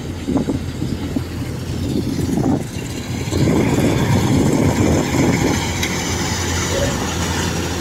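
Kubota rice combine harvesters running at work: a steady diesel engine hum under the dense clatter of cutting and threshing, growing louder about three seconds in.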